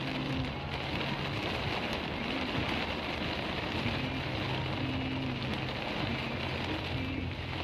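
Heavy rain pouring down and pattering on surfaces as a dense, steady hiss, with a low hum underneath.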